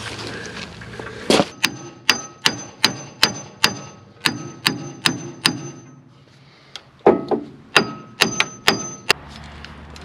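Hammer blows ringing on the steel gland nut of a Case 580K backhoe's swing hydraulic cylinder, about two or three sharp strikes a second in two runs with a short pause between. The hammering is to break loose a nut seized by rust on its first thread.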